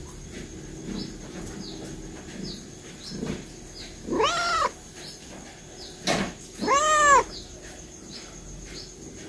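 Calico mother cat meowing twice while in labour, each a drawn-out call that rises and falls in pitch, the second a couple of seconds after the first.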